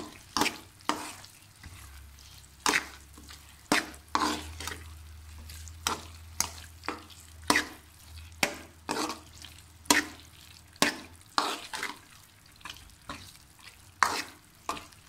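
Metal spoon scraping and knocking against an aluminium kadhai as thick besan halwa is stirred through hot ghee, in short irregular strokes about once or twice a second. The halwa is being stirred without pause until the ghee separates out.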